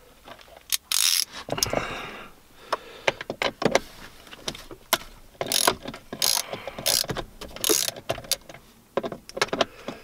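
Socket ratchet wrench clicking in short, irregular bursts as a 9/16 socket backs off the nuts on a battery isolator's terminal studs, with small metal scrapes and clinks of the tool.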